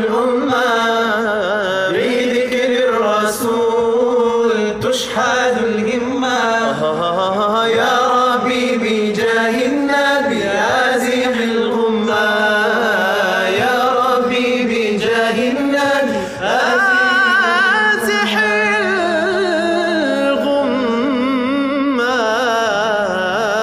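Male voices singing an Arabic nasheed a cappella: a lead voice sings a long, ornamented melody over a steady low drone.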